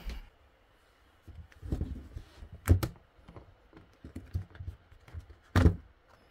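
Clicks, taps and rubbing of a clear plastic phone case being handled and pulled off a smartphone. There are two sharp clicks a little before halfway and a louder knock near the end.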